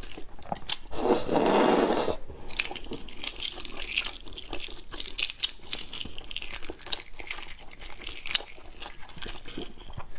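Shells of boiled eggs being peeled off by hand: a run of small, crisp cracks and crackles of breaking shell, with a louder rustle about a second in.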